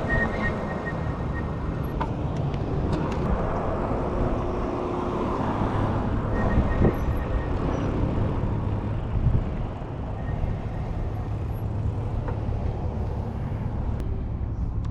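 Steady wind and road noise from riding an Ariel Rider D Class electric bike along a street, with car traffic around it.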